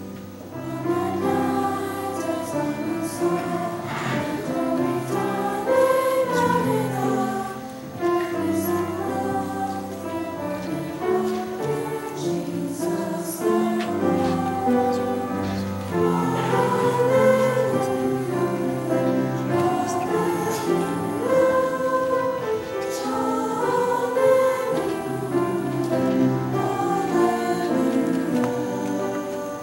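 Mixed middle-school choir of boys and girls singing a Christmas choral piece in several parts, the loudness dipping briefly between phrases.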